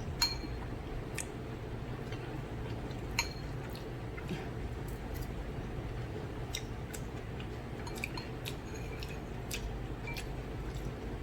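Cutlery clinking on a dish while noodles are eaten: two sharper ringing clinks about three seconds apart, then scattered soft clicks and squishy eating sounds over a steady low hum.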